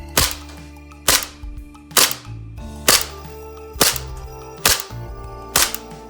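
Gas blowback M9 airsoft pistol firing on green gas, seven sharp shots about one a second, the slide cycling with each.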